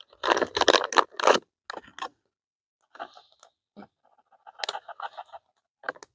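A foil-lined bag of ground coffee crinkling and rustling as it is handled and tipped, loudest in the first second and a half. Fainter rustles and quick light ticks follow as grounds are shaken out of the bag into a cup.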